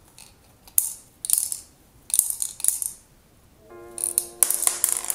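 Small plastic beads tipped from a plastic bag into a hollow plastic figure, clicking and rattling in short bursts with the bag crinkling. Steady musical tones come in near the end.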